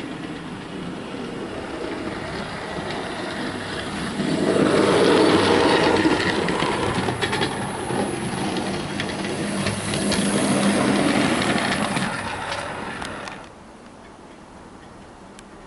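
Model railway train running along the track, wheels clicking over the rail joints. It grows louder as it approaches, is loudest through the middle, and drops away sharply about 13 seconds in.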